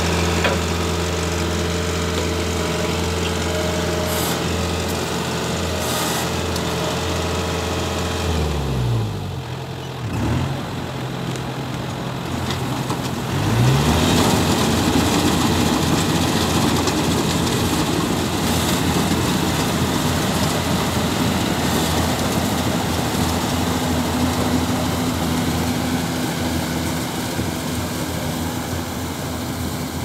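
Yanmar AW70GV rice combine harvester's diesel engine running steadily at low speed; about nine seconds in the engine speed falls and dips, then near fourteen seconds it is revved back up and the harvester runs louder and rougher at working speed as it cuts rice.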